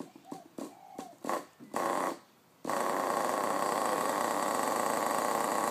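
Small two-stroke nitro glow engine of an HSP 1:10 RC buggy being pull-started: several short whirs that rise and fall in pitch as the cord spins the engine over. About two and a half seconds in it catches abruptly and runs steadily at a high idle.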